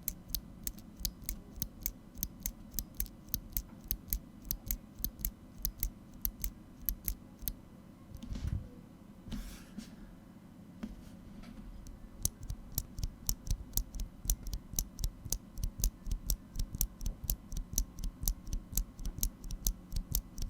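Gateron KS-series mechanical keyboard switches pressed one after another, each press a sharp click, at about two to three a second. About halfway through the presses stop for a few seconds, with a thud and a brief rustle. They then resume at a slightly faster rate.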